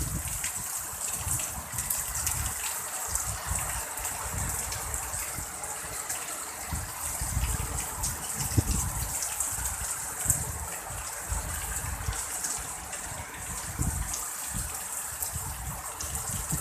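Heavy rain pouring down steadily in a strong wind, with irregular gusts rumbling on the microphone and a few sharp ticks of drops striking nearby.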